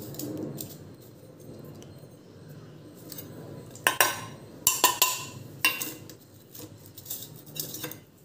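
Metal spoon clinking and scraping against a stainless-steel saucepan while chopped lemongrass is stirred in water, with several sharp clinks in the second half.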